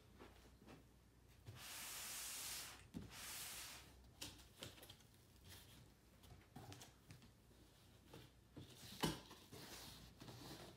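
Cardboard box being opened by hand: two long rasping tears about two seconds in, then cardboard flaps rustling, scraping and tapping, with one sharp knock near the end.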